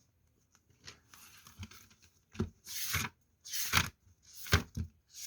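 Handling noise: a series of short rustling and tearing strokes at irregular intervals, the louder ones in the middle of the stretch.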